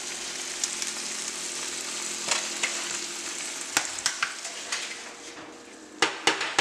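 Melted butter sizzling and crackling in a hot frying pan, a steady hiss that thins out toward the end. A few sharp knocks come close together near the end.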